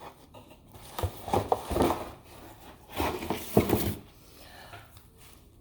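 A K-pop album's packaging being handled and opened by hand: two spells of rustling with light knocks and taps, about a second in and about three seconds in, then fainter handling.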